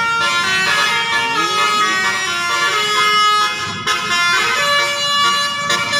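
Multi-tone 'telolet' bus horn playing a tune: several horn notes sound together and change pitch in steps about every half second to a second.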